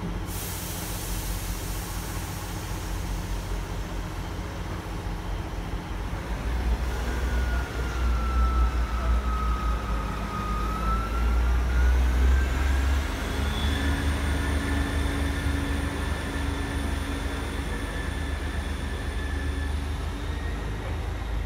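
Class 158 diesel multiple unit idling at the platform, then its diesel engines throttle up about six seconds in and it pulls away, with a deep rumble and transmission whines that dip and then rise to a high steady note. A brief hiss at the start.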